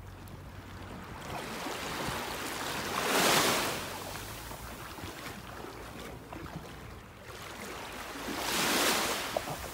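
Small waves washing in shallow water at a beach, swelling up twice, about three seconds in and again near the end, over a steady low rumble.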